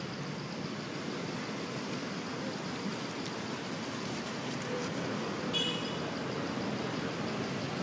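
Steady outdoor background noise, like distant traffic, with one brief high-pitched squeak about five and a half seconds in.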